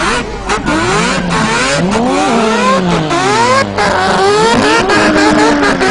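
Turbocharged Mazda 20B three-rotor rotary engine of a drift car revving hard, its note climbing steeply and dropping back again and again, about five or six times, as it is worked on the throttle through a smoky slide.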